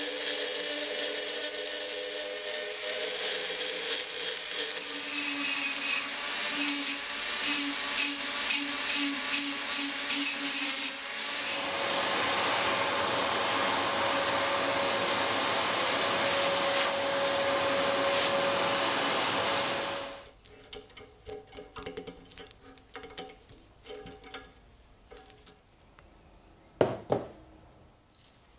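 Handheld rotary tool spinning a small abrasive disc against the rusty steel socket of a bayonet, grinding off rust, its motor note wavering under the pressure. About eleven seconds in the grinding stops and a vacuum cleaner runs with a steady hiss and whine, sucking up the rust dust, until it cuts off suddenly about twenty seconds in. Faint scattered knocks follow.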